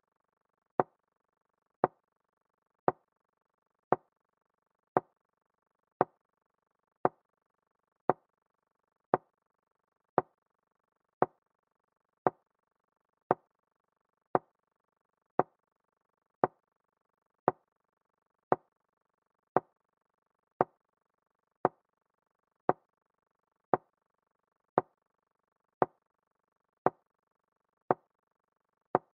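Chess-board move sound effect: a short, sharp knock repeated evenly about once a second, one for each piece moved as the game is played through.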